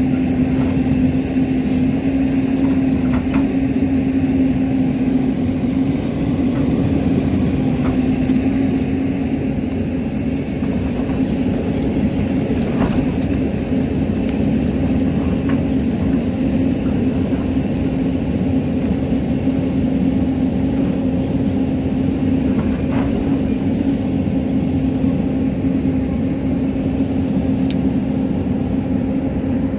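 Hyundai crawler excavator's diesel engine running steadily under digging load, with a steady low hum. A few faint knocks of soil and stones against the bucket come through now and then.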